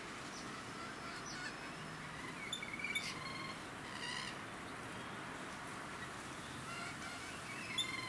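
Rainbow lorikeets giving short, high calls in small clusters: about two and a half seconds in, again at four seconds, and near the end. A steady background hiss lies under them.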